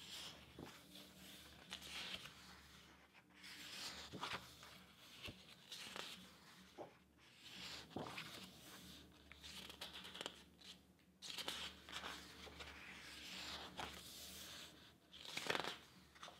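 Pages of a hardcover book being turned and smoothed by hand: soft paper rustles and swishes every second or two, the loudest near the end.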